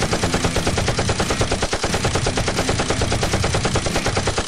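Machine-gun sound effect: rapid automatic fire in one fast, unbroken burst.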